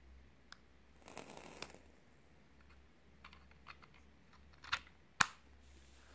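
Hands handling a vape box mod with a rebuildable dripping atomizer on top: a brief rustle and scrape about a second in, a few light clicks, then two sharp clicks near the end, the second the loudest.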